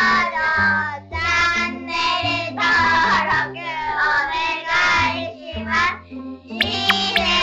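Upbeat end-card jingle: a high singing voice over a bass line that steps between notes, with a short break about six seconds in.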